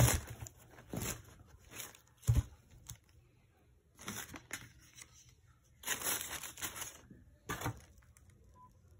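Tissue paper in a shoebox rustling and crinkling in irregular bursts as a sneaker is handled, with two dull knocks, one at the very start and one a little over two seconds in.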